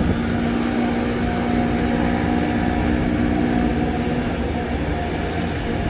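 Diesel engine of a paddy-field tractor running steadily under load, a low rumble with a steady drone.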